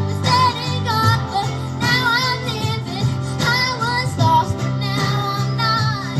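Young female voices singing a worship song over steady instrumental accompaniment.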